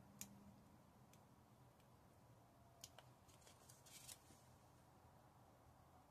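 Near silence, with a few faint ticks and a brief light rustle about three to four seconds in, from a hobby knife and a plastic sticker sheet as a tiny sticker is lifted off.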